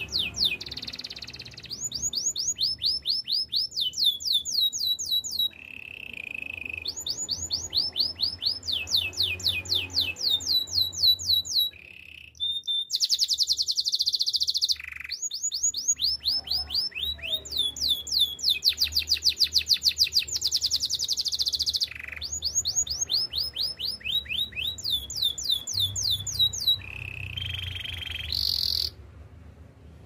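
Canary singing a long, varied song: runs of quick falling notes repeated several times a second, phrase after phrase at changing speeds, with faster buzzing rolls around the middle and a short break about twelve seconds in.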